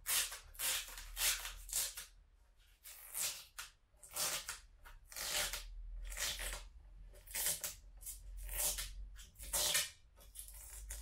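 Protective plastic film being peeled back along the edge of a PVC windowsill: about a dozen short, irregular rustling, scraping strokes.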